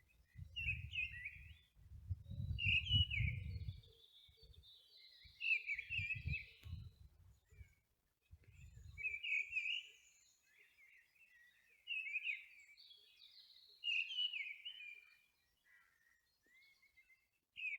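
Wild birds singing outdoors: short, chirpy warbled phrases repeated every second or two. Low rumbling bursts run under the song in the first half and then stop.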